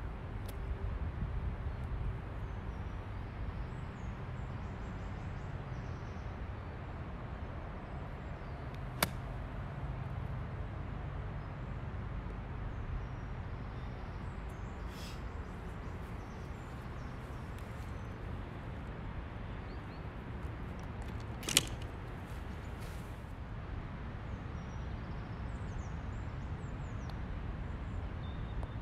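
Steady low outdoor rumble with faint bird chirps, broken twice by a sharp click of a golf club striking the ball, about nine seconds in and again about twenty-one seconds in.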